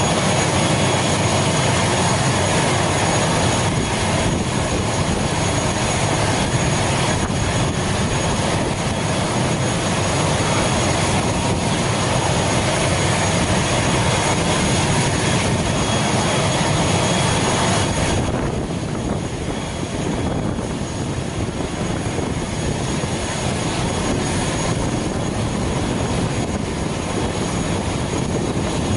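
ATR 72 turboprop airliner's engine noise: a steady turbine roar with a thin high whine above it, easing slightly about two-thirds of the way through.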